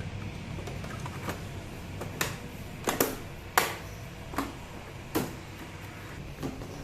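Plastic scooter fairing panel being fitted onto its clips: about eight sharp, irregular clicks and knocks, the loudest about three and a half seconds in.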